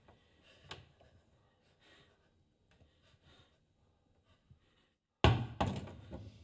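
Faint small rustles, then about five seconds in two loud heavy thuds in quick succession that ring briefly in a small wooden room.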